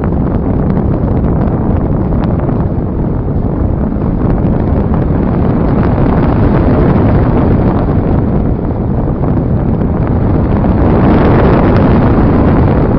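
Airflow rushing over the microphone of a phone riding on board a radio-controlled slope-soaring glider in flight. It is a steady, loud wind rush with no motor tone, and it swells slightly near the end.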